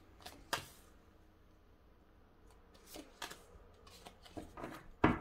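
Tarot cards being handled and laid down on a wooden tabletop: two soft card snaps about half a second in, a quiet stretch, then a string of short flicks and taps from about three seconds in, the loudest near the end.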